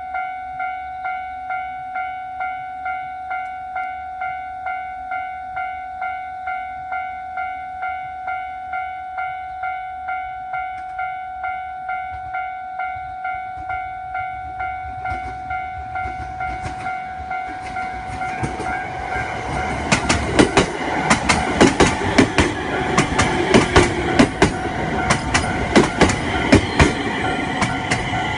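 Japanese level-crossing alarm ringing a steady, rapidly repeating electronic ding. A JR 701-series electric train approaches under it and passes over the crossing from about 20 seconds in, its wheels clacking loudly over the rail joints.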